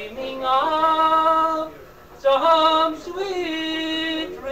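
Traditional song sung unaccompanied by a single voice on a 1990s cassette recording: long held notes in three phrases, with a short break for breath about two seconds in.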